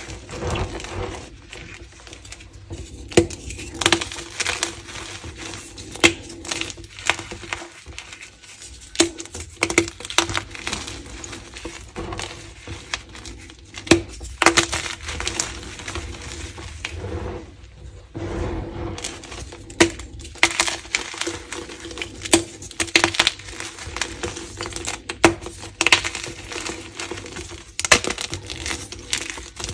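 Gym chalk chunks crushed and crumbled by hand in a heap of chalk powder: irregular sharp crunches and snaps as pieces break under the fingers and thumbs, with a soft dry hiss of powder shifting between them.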